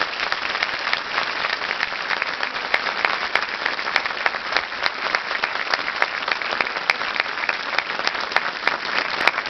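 Audience applauding: many people clapping steadily after a talk.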